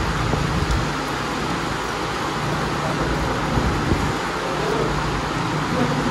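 Steady restaurant background noise: an even hiss with a low hum underneath.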